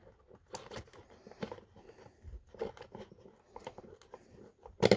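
Scattered small clicks and crackles of hands working the sewing machine's wiring, with a sharper, louder click near the end.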